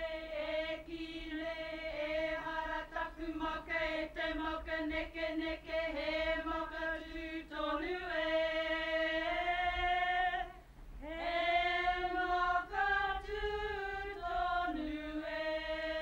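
A group of mostly women sing a Māori welcome song (waiata) in unison. It is a chant-like melody in long held notes, with a short break for breath about ten and a half seconds in before the next phrase.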